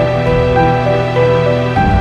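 Background music: a slow, gentle tune of held notes stepping every half second or so over a sustained low chord.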